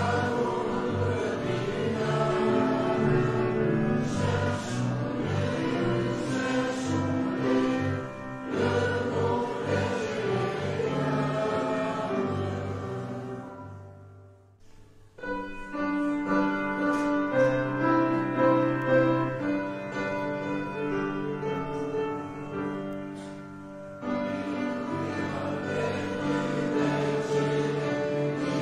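Christian choral music with a choir singing. The song fades out about halfway through and a new one starts about a second later.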